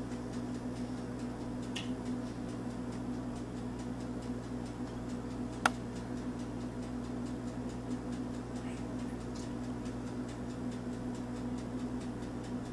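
Room tone: a steady low hum, broken once near the middle by a single sharp click.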